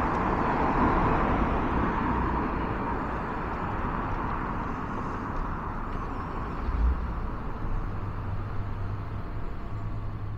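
Road traffic on a town street: a vehicle passing, loudest in the first couple of seconds and then slowly fading. A low steady hum comes in about three-quarters of the way through.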